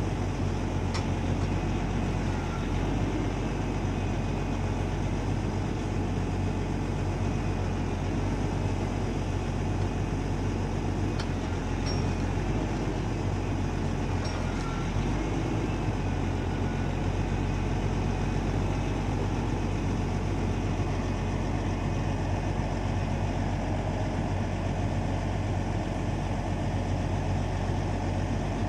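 Diesel engine of a log truck running steadily to power its self-loader crane's hydraulics as the grapple swings and lifts logs off the load, with a few faint clicks now and then.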